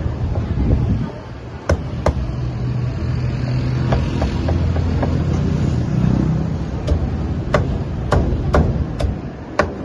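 Cleaver chopping cooked meat on a round wooden chopping block. There are two sharp chops about two seconds in, then a regular run of chops about two a second from about seven seconds in, over a low steady rumble of street traffic.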